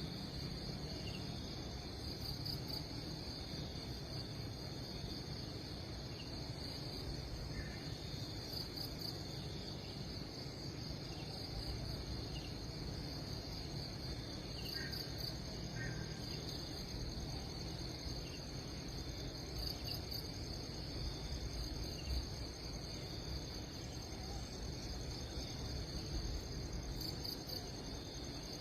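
Steady insect chorus, crickets or similar, holding a continuous high trill that swells briefly every few seconds, over a low steady rumble, with a few faint short chirps.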